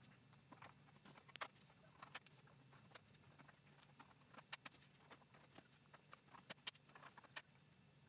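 Faint, scattered clicks and taps of RAM sticks being handled and pressed into the memory slots and slot latches of a Power Mac G5, with near silence between them.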